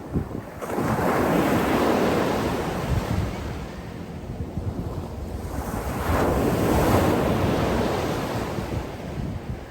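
Sea waves breaking and washing in, two surges about five seconds apart, each rising quickly and fading slowly, over a steady low rumble.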